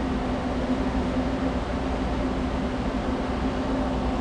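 Steady hum and whir of a powered-up Haas ST-25Y CNC lathe standing idle with no cutting going on: one constant low tone over an even mechanical noise.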